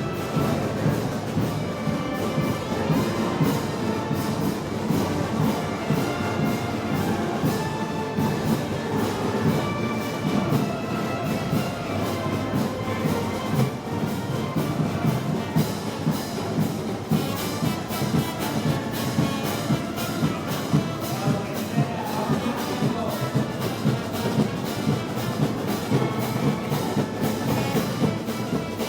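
Brass band playing festival march music, with brass carrying the tune over a steady drum beat.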